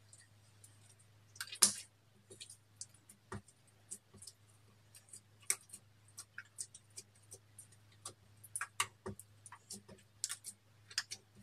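Clear slime squeezed and stretched by hand, giving irregular wet clicks and pops, the loudest about one and a half seconds in. A low steady hum runs underneath.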